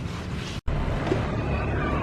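Steady low rumble of bus engines and roadside traffic, cut off for an instant just after half a second in. Faint high tones sound near the end.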